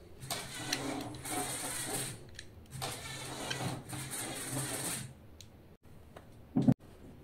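Small electric motors of two weighted LEGO Technic cars running against each other in a tug-of-war: a steady motor and gear whir for about five seconds, dipping briefly about halfway. A single sharp knock near the end.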